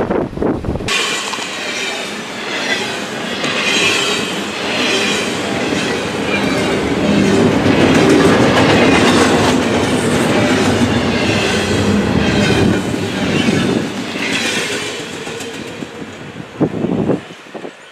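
Double-stack intermodal freight cars passing at track speed, their wheels clattering over the rail with some wheel squeal. The noise eases off toward the end, then drops away suddenly with a last knock as the train's tail goes by.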